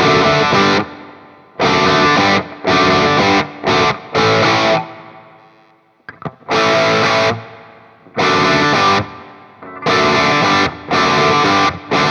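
Electric guitar with humbucker pickups playing chords through a digital Marshall Plexi amp emulation, boosted by a Tube Screamer set to minimum drive and full level, giving a crunchy overdriven tone. The chords are struck and held about a second, then choked short, in a repeating riff with a pause about halfway through.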